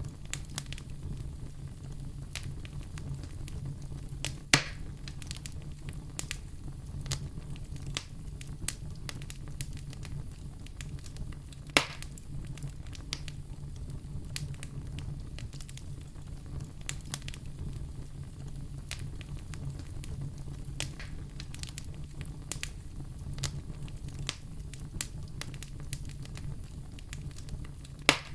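Wood fire crackling steadily in a fireplace over a low rumble, with frequent small snaps and three louder pops: about four and a half seconds in, near twelve seconds, and near the end.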